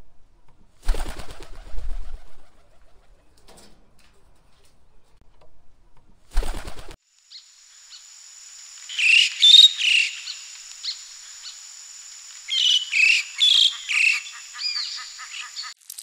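Campo flicker calling: a run of loud, sharp calls with sliding pitch in uneven groups over a steady high whine. Earlier come two short bursts of rustling noise.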